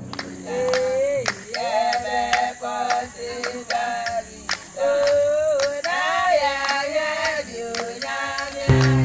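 A group of voices singing together, men and women, with a sharp beat about three times a second. Near the end the singing gives way to a deep, steady tone.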